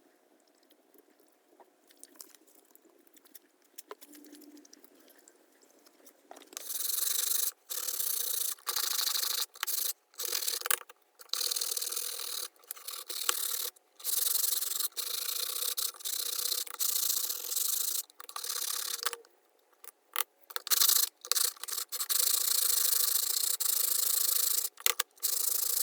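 Sanding: a scratchy rubbing hiss that starts about six seconds in, after a faint stretch with a few light ticks, and then runs in stop-start strokes of one to three seconds with abrupt breaks between them.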